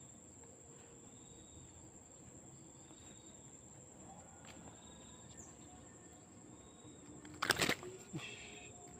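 Insects trilling steadily and high-pitched in the background, with faint chirps repeating about once every second and a half. A short loud clatter and rustle comes about three quarters of the way through, from handling the caught snakehead.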